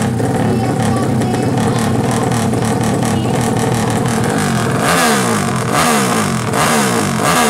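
Carbureted 350 cc single-cylinder drag-bike engine, built from a Yamaha Jupiter MX, running at a fast idle and then revved in a series of quick throttle blips, each rising and falling, over the last few seconds.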